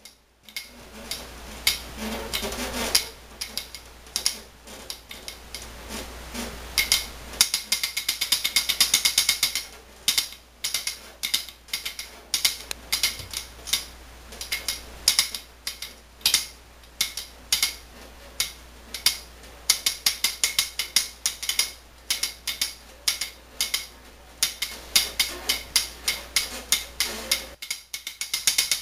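Rapid rattling clicks from a hard plastic toy being shaken and dangled, coming in bursts of several clicks a second with short breaks between them.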